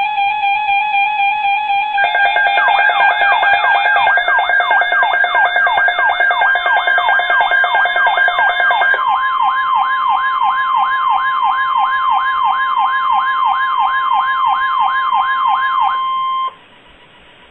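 Electronic siren warbling up and down about three times a second over steady alert tones. From about nine seconds in, a steady tone at about 1 kHz sounds with it: the weather radio's 1050 Hz warning alert tone. It all cuts off about a second before the end, leaving faint hiss.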